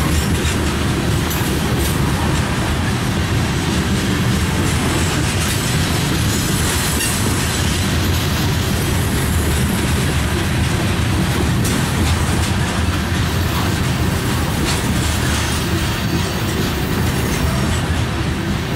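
Loaded covered hopper cars of a freight grain train rolling past: a steady rumble of steel wheels on the rails.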